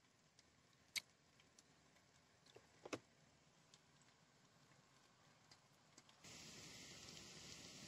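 Near silence with a few faint ticks. About six seconds in, a faint steady hiss begins.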